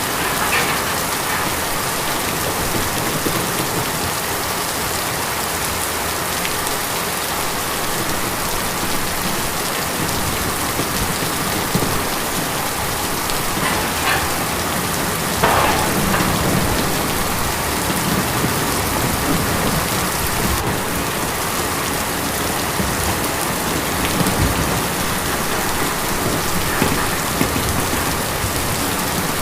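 Steady rain drumming on a tin roof, an even hiss of many drops with a few louder spatters now and then.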